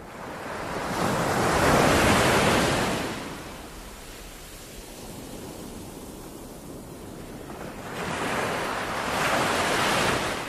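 Ocean surf: waves breaking and washing up a sandy beach, one swelling to its loudest about two seconds in and fading away, another swelling near the end.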